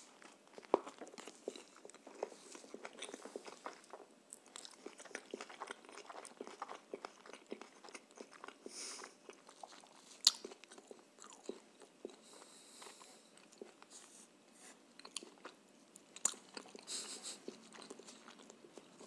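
A person biting into and chewing a homemade shawarma wrapped in lavash, with many small wet mouth clicks throughout and one sharper click about ten seconds in. A few short hissing noises come between bites.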